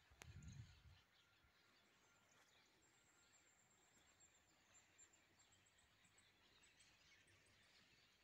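Near silence: faint outdoor ambience with scattered distant bird chirps and a thin high tone in the middle. A brief low rumble sounds near the start.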